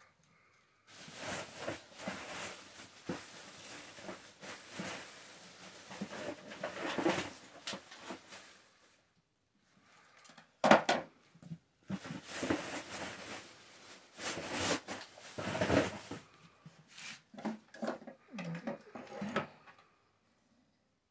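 Hands handling computer parts: rustling and clicking in several bursts with short pauses between them, one sharp click about eleven seconds in being the loudest.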